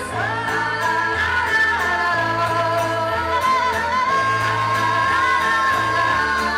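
Live band music: female voices singing long held notes together over a bass line that steps to a new note about once a second.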